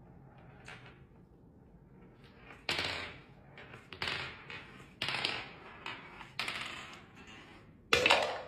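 Marbles clattering down a marble run: about six sharp clacks, each trailing off into a short rattle, the loudest near the end.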